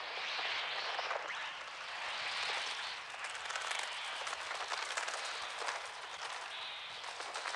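A dense swarm of crows cawing and beating their wings, in the film's electronically produced bird sound effects, swelling and fading in several waves.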